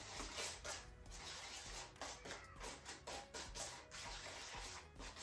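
A small utensil stirring and scraping paint thickened with baking soda on a plate, a run of quick irregular scrapes as the gritty mixture is worked together.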